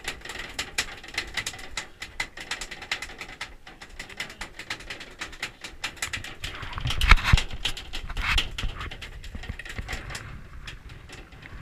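Fishing reel clicking irregularly as a hooked albacore tuna is fought at the boat's side, with two louder rushes of noise about seven and eight seconds in.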